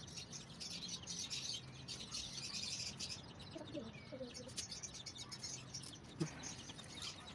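Small birds chirping continuously, many quick high chirps overlapping. A single sharp tap comes about six seconds in.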